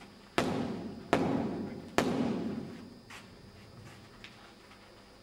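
Three sharp strikes landing on a handheld striking pad, each under a second apart and each ringing out in a large, echoing hall, followed by two faint taps.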